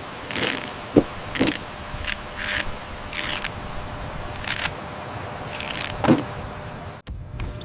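Rebuilding work sounds: a string of short scrapes and clatters of bricks and rubble being moved, irregularly spaced, three of them with a dull thud.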